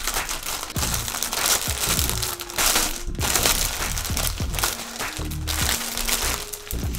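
Clear plastic poly bag crinkling and crackling as it is handled and opened to take out a hoodie, over quiet background music with a few held notes.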